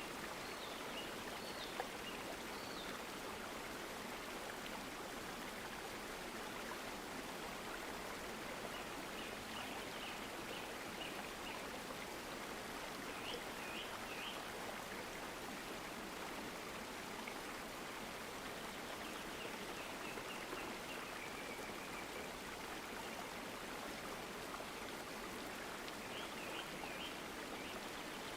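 Stream water flowing with a steady rushing hiss. Small birds chirp in short high bursts, several times over the stream's sound.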